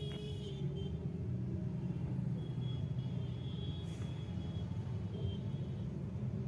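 Low steady rumble of street traffic heard from inside a car waiting in a queue, with motorbikes passing close by. A faint high tone sounds for about two seconds around the middle.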